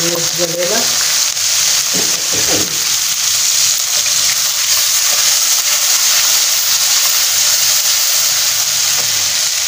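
Water poured into hot oil and fried onions in a karahi, the mixture sizzling loudly and steadily as it is stirred with a wooden spatula.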